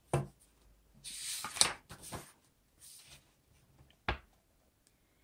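Pages of a thin paperback picture book being turned by hand: a paper rustle and flick lasting about a second, then a single light tap near the end.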